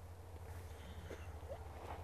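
Quiet outdoor background: a steady low hum with a few faint, short chirp-like sounds about a second in and near the end.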